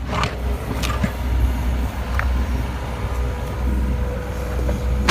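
An engine running steadily with a low, even hum, with a couple of light knocks.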